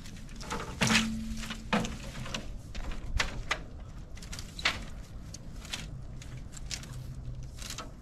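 Irregular sharp cracks, snaps and knocks of bamboo being cut and handled, the loudest about a second in, and again near three seconds and just before five. A dove coos briefly about a second in.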